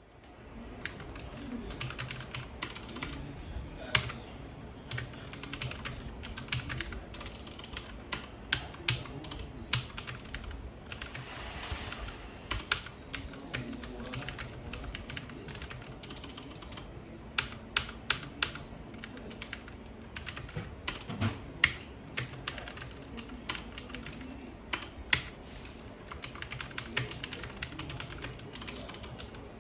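Typing on a computer keyboard: a steady run of key clicks, with scattered louder, sharper strikes.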